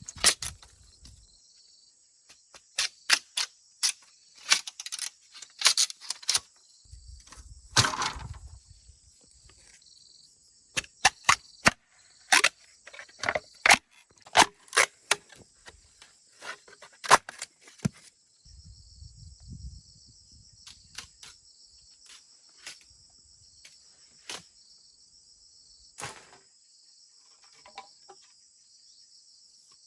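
Insects chirring steadily in a high continuous drone, with many sharp, irregular knocks and clicks over it, thick for the first two-thirds and sparse after.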